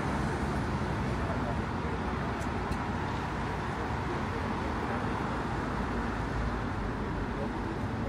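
City street ambience: a steady hum of road traffic with indistinct chatter of passers-by.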